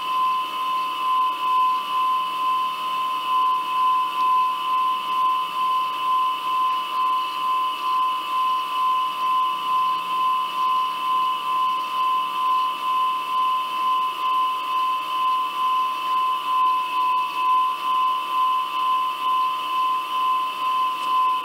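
A steady high-pitched whine over a light hiss, pulsing slightly in level about twice a second.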